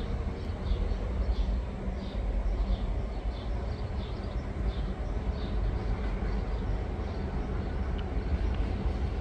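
CFR class 60 (DA) diesel-electric locomotive running with a steady low rumble and hum. A short high chirp repeats about twice a second over the first six seconds.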